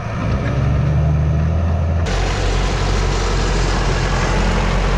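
Tractor diesel engines running steadily: first a Fendt Favorit 515C working a disc harrow, then, after a sudden change about two seconds in, an Ursus 1014 close by, deeper and with more hiss.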